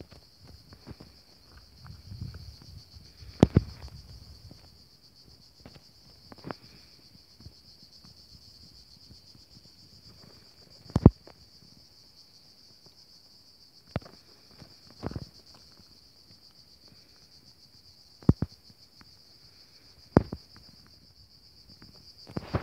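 Steady high-pitched chorus of insects buzzing in dry summer scrub, with a handful of sharp, isolated knocks scattered irregularly through it, the loudest about eleven seconds in.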